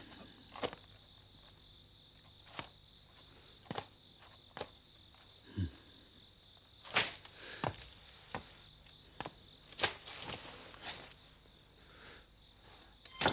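Faint night ambience of crickets chirping steadily, with scattered soft clicks and taps at irregular intervals.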